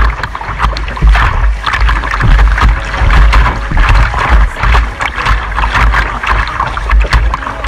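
Whitewater rapids rushing and splashing against a kayak's bow and paddle, with repeated splashes and a heavy low rumble of water buffeting the bow-mounted camera's microphone.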